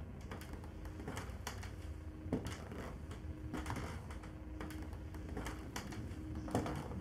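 Irregular light clicks and knocks of someone moving about a small room, as footsteps and small handling sounds, about a dozen over several seconds. A faint steady hum comes and goes underneath.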